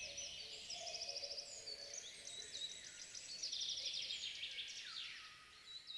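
Forest birds calling: several overlapping chirps, rapid trills and short downward-sliding notes.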